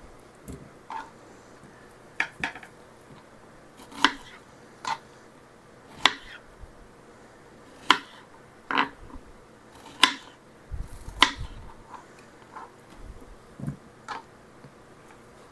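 Kitchen knife slicing strawberries on a plastic cutting board: sharp knocks of the blade meeting the board, about one every second, irregular and sometimes in quick pairs.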